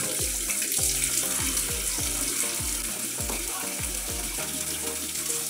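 Water running steadily from an outdoor tap and splashing into a plastic tub of toys. A regular low beat, about three a second, runs underneath and stops near the end.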